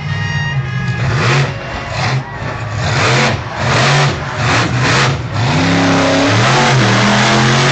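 Bigfoot monster truck's engine revving hard in a run of sharp surges, then rising in pitch and pulling steadily as the truck accelerates.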